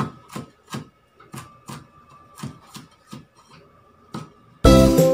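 Meat cleaver chopping ginger on a wooden cutting board, a steady run of sharp knocks about three a second as the blade strikes the board. Loud music cuts in suddenly near the end.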